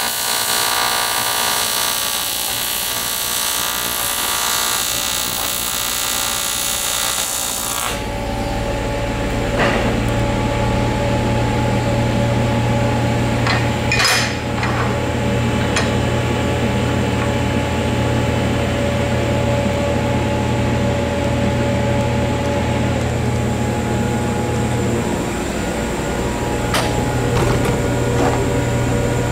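AC TIG welding arc on aluminum buzzing harshly, then cutting off abruptly about eight seconds in as the weld is stopped. A steady low hum remains, with a few sharp knocks.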